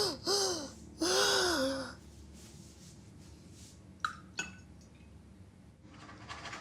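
A woman's voice crying out in three rising-and-falling sobs. About four seconds in come two light clinks of glass, as glasses are touched or set down while the dead are remembered with a drink.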